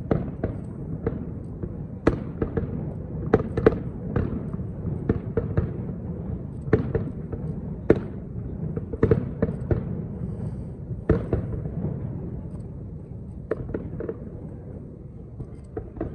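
Aerial fireworks shells bursting in quick, irregular succession: sharp bangs and cracks over a continuous low rumble. The bursts thin out and grow quieter over the last few seconds.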